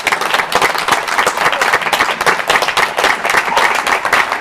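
Audience applauding: many hands clapping in a dense, steady ovation.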